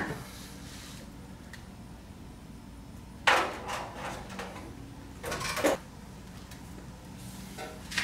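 Thin metal flashing being handled and pressed into place: two sharp sheet-metal rattles, about three seconds in and again two seconds later, with a fainter knock near the end.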